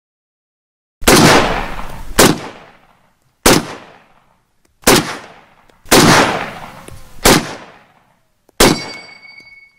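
M1 Garand rifle fired seven times in steady semi-automatic succession, about one shot every 1.2 seconds, each report trailing off in a long echo. Right after the last shot, the empty en-bloc clip ejects with the rifle's signature ringing 'ping'.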